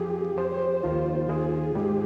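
Background music: calm ambient synthesizer and keyboard chords, changing every second or so.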